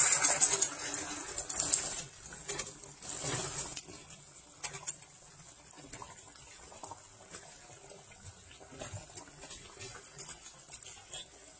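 Coconut-milk sauce in a wok being stirred with a silicone spatula through spinach and fish, the liquid sloshing loudest in the first two seconds and again briefly about three seconds in. After that there are only faint liquid sounds with light scattered ticks.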